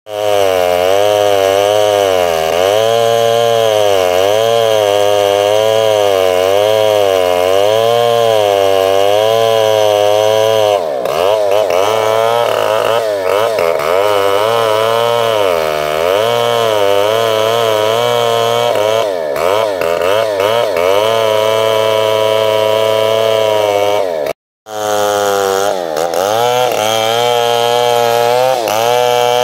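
Chainsaw running hard and cutting into a tree trunk, its engine pitch rising and falling as the load on the chain changes. The sound cuts out abruptly for a split second about 24 seconds in.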